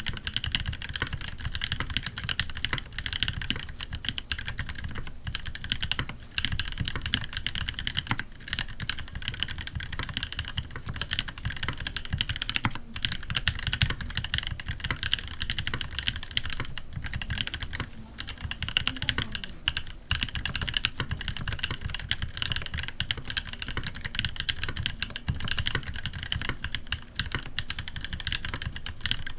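Fast, continuous typing on a custom tenkeyless mechanical keyboard (TX87SE) fitted with lubed Cream linear switches, a brass plate and GMK keycaps: a dense stream of key strokes with a few brief pauses.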